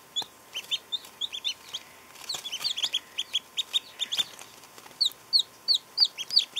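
Baby chicks and newly hatched ducklings peeping in a brooder: many short, high calls in quick succession, several sliding down in pitch.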